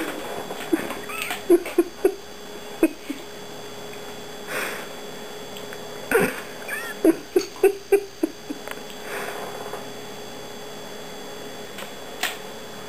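Black Labrador retriever whining and giving short whimpers in two spurts, one about a second in and another about six seconds in, frustrated by a clothespin clipped to its neck fur that it cannot reach.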